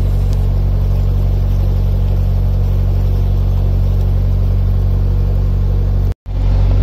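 Narrowboat engine running steadily at cruising speed, a low even drone. It cuts out for an instant near the end and comes straight back.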